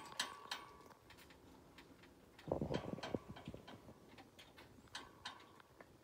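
Faint scattered clicks and taps of budgies in their cage, with a denser run of taps and soft knocks about two and a half seconds in and a brief soft tone twice.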